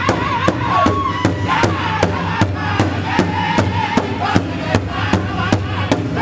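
Powwow drum group: several men singing in high, wavering voices over one large hide drum that they beat together with sticks, in a fast, even beat of about four to five strokes a second.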